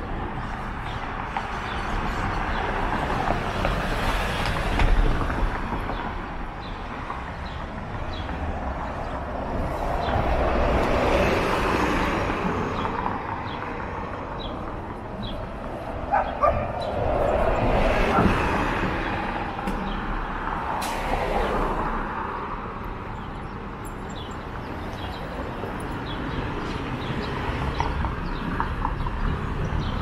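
Traffic on a city street, vehicles swelling past and fading away several times, over a constant low rumble of wind on the microphone.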